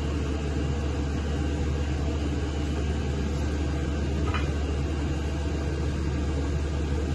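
Steady low hum of a running motor or fan, even in level throughout, with one faint click about four seconds in.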